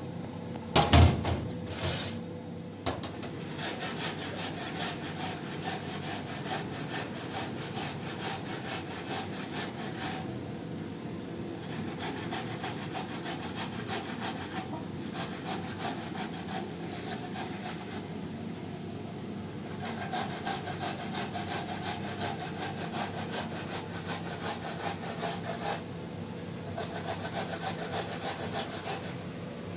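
Fast, steady rubbing or scraping strokes that go on with brief pauses, and a loud knock about a second in.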